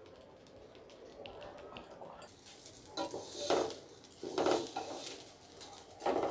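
Wooden spatula stirring and scraping raw rice and lentils around a pot as they fry with spices, in a series of short scraping strokes that begin about two seconds in.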